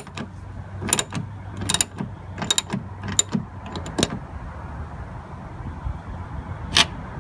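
Socket ratchet clicking in short runs as the mirror's mounting nuts are run down and tightened onto their studs, a burst every half second to second, then one last click near the end.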